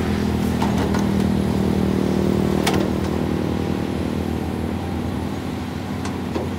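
Caterpillar 320D hydraulic excavator's diesel engine running steadily while it digs, with a sharp clank about two and a half seconds in and a few lighter knocks.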